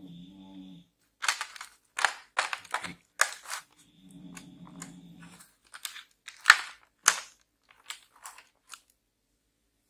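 Clear plastic blister tray crackling and snapping, with small brass air-fitting adapters clicking, as the pieces are pried out of their moulded slots: two runs of sharp crackles and clicks.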